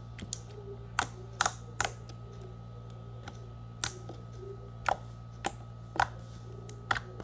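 Glossy slime being pressed and kneaded by hand, giving about ten sharp, irregular clicks and pops, over a steady low hum.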